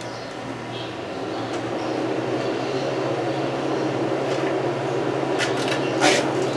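A steady low mechanical rumble with a hum, growing louder over the first two seconds and then holding, with a few sharp clicks near the end.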